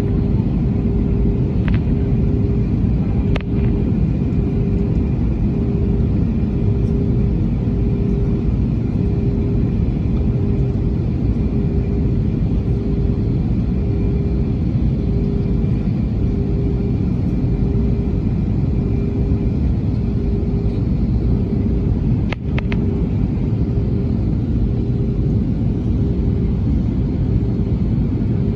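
Jet airliner engines and airflow during takeoff: a loud, steady rumble with a faint pulsing hum over it and a few sharp clicks.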